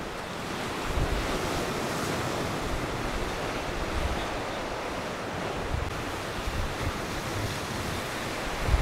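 Wind blowing on the microphone over a steady wash of sea surf, with a few low gusty rumbles: one about a second in and more near the end.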